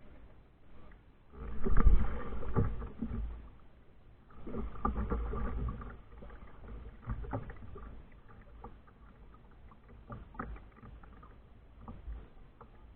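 Kayak moving on the water: water sloshing and splashing with knocks against the hull. The sound is loudest in two spells in the first half, and scattered knocks follow.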